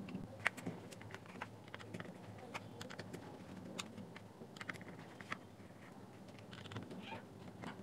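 Faint, irregular small clicks and taps from hands handling the opened speaker's plastic housing and circuit board.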